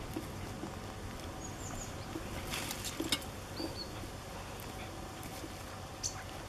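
A dog digging in loose garden soil with its paws and snout, giving short bursts of scratching and pattering earth, most of them about halfway through.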